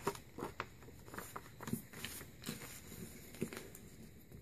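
Faint rustling and soft ticks of a sheet of paper being handled and folded by hand into a paper airplane.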